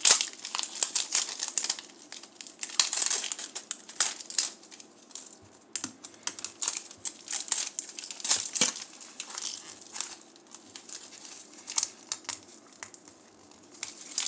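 The plastic outer wrapping of a Mini Brands capsule ball crinkling in irregular bursts as fingers pick at it and peel it off.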